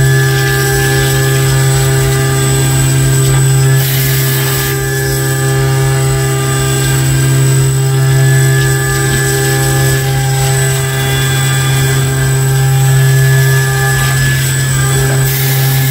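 XYZ560 CNC mill's spindle driving a 12 mm three-flute end mill at 8,000 rpm through 6061 aluminium in a deep side cut (19.5 mm depth, 2 mm stepover): a loud, steady cutting tone over a strong hum. Two short bursts of hissing noise come about four seconds in and again near the end.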